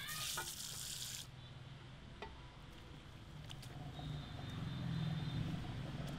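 Handheld shower sprayer spraying water into a salon shampoo basin, shut off about a second in; then fingers scrubbing lathered hair, a low soft squishing that grows near the end.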